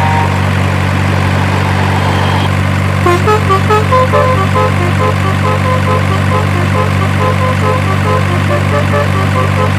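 Heavy truck engine idling with a steady low drone. From about three seconds in, a quick, repeating tune of short 'telolet' bus-horn notes plays over it.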